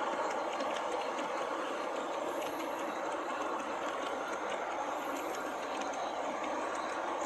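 Large-scale garden-railway model freight cars rolling past close by: a steady rumble of the wheels on the track with light clicking.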